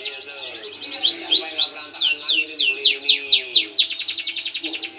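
A songbird singing a fast, continuous song of rapid trills and steep downward-sweeping whistled notes, with lower wavering tones sounding beneath it.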